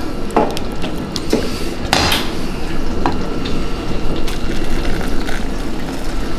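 Kitchen tongs clinking against a stainless steel saucepan and a ceramic bowl as noodles are lifted out of broth and served: a few sharp clinks, the loudest about two seconds in.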